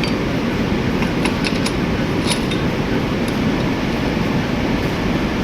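Ford Ranger engine running steadily, with a few faint light clicks over the rumble; the engine is being checked for a knock that the mechanic puts down to the bearing and piston.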